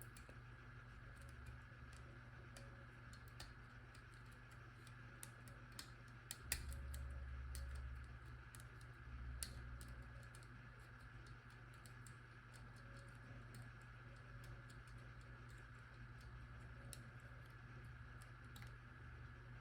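Faint, irregular small clicks of a disc-detainer pick turning the rotating discs inside an Abloy Classic padlock, over a low steady hum, with a brief soft rumble of handling about a third of the way in.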